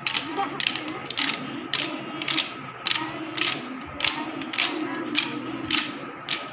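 Wooden sticks clacked together by a circle of seated children in a Santali stick dance, a steady rhythm of sharp clacks about two a second, some of them doubled.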